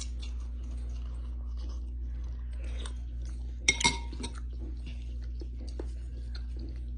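Close-up chewing of noodles and boiled egg, with soft wet mouth clicks throughout. A utensil clinks sharply twice against the bowl a little past halfway. A steady low hum runs underneath.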